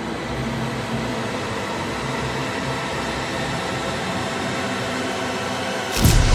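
Steady, even hiss-like noise with a faint low hum. About six seconds in, a sudden loud hit with deep bass cuts in.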